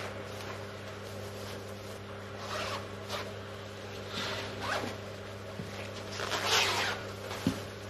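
Crinkly rustling and swishing of disposable protective coveralls and gloves being put on, in several short strokes like a zipper being drawn, the loudest near the end. A sharp click comes just before the end, and a steady low hum runs underneath.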